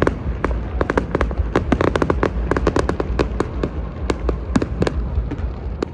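Fireworks and firecrackers going off all around: a dense, irregular string of sharp bangs and pops, several a second, over a steady low rumble.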